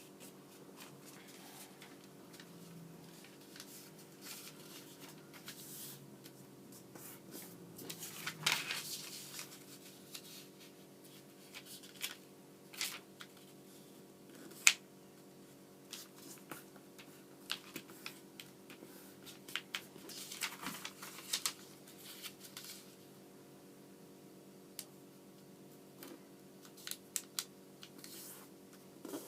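Origami paper being handled and folded by hand: irregular rustling swishes and sharp crease clicks, the loudest a single sharp snap about halfway through. A steady low electrical hum runs underneath.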